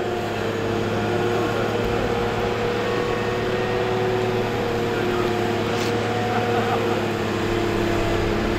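Boat travel lift's engine running steadily as the lift rolls with a wooden skipjack in its slings: a low hum with several higher tones held over it.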